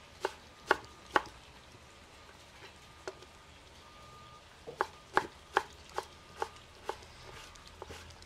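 Kitchen knife dicing pineapple on a wooden cutting board: sharp knocks as the blade strikes the board. There are a few spaced strokes at first, then a steady run of about two and a half strokes a second in the second half.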